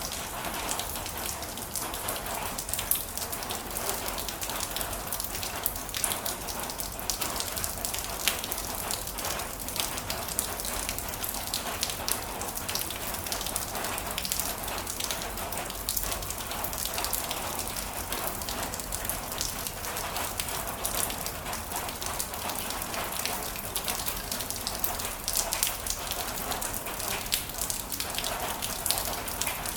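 Heavy rain falling steadily, a dense hiss with many individual drops ticking on a surface.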